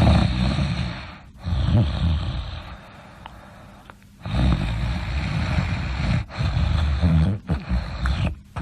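A sleeping person snoring loudly: several long, rough snoring breaths with brief pauses between them, the longest one in the second half.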